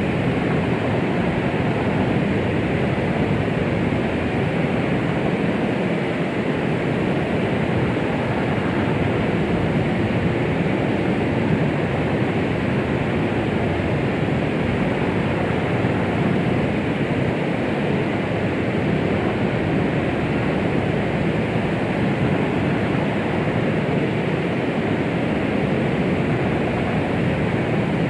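Continuous white noise presented as the sound of the womb: a steady, even hiss with most of its weight in the low and middle range, unchanging throughout.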